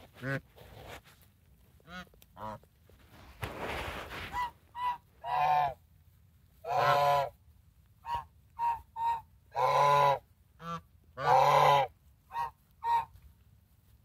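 African geese honking repeatedly, a mix of short single honks and several longer, drawn-out honks.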